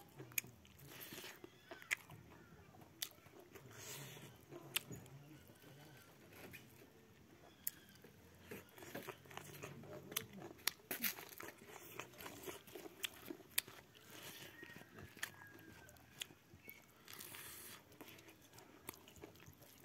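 Close-up mukbang eating sounds: a man chewing and smacking on mouthfuls of rice eaten by hand, with irregular sharp clicks throughout.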